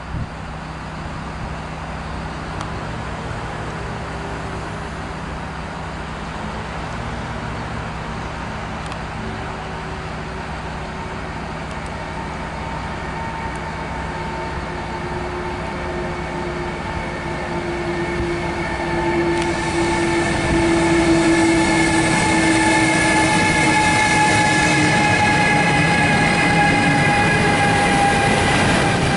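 Electric train running through the station, a steady rumble with several whining tones that slowly shift in pitch. It grows louder as it comes closer, with a clear step up about two-thirds of the way in.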